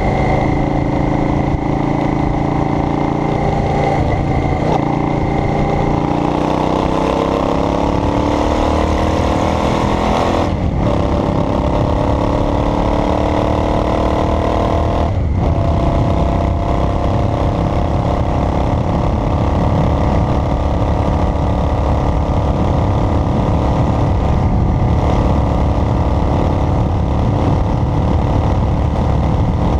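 Car engine and road rumble while driving, the engine's pitch climbing as it accelerates, with two short breaks in the sound about ten and fifteen seconds in.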